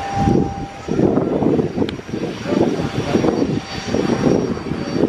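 Twin-engine business jet's turbofan engines running as it rolls along the runway, an uneven, pulsing rumble that swells and drops about once or twice a second.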